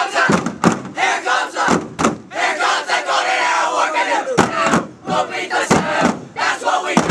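A crew of teenage boys shouting and chanting together, with one long held group shout in the middle that falls in pitch. A few sharp knocks cut through the voices.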